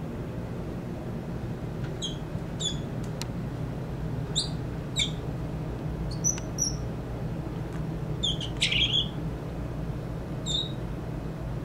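Young northern mockingbird giving a string of short, high chirps and squeaky notes with gaps between them, the loudest and fullest cluster coming about three-quarters of the way through. A steady low hum runs underneath. The keeper takes these odd notes for a young bird still playing with its voice.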